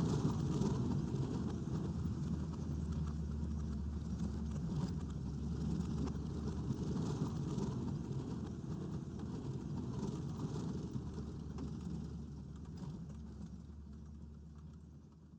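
Steady low drone of a vehicle running, engine and road noise, fading out over the last few seconds.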